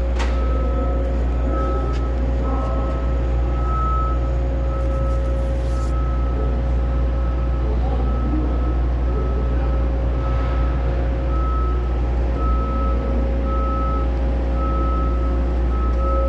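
JCB 505 telehandler's Kohler four-cylinder diesel engine idling steadily, with a high beep repeating about once a second over the deep engine hum.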